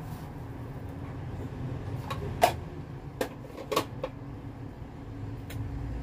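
A handful of short, sharp knocks and clinks of kitchenware being handled, a plastic sugar container and a metal spoon against a ceramic bowl, the loudest about two and a half seconds in. Under them runs a steady low hum.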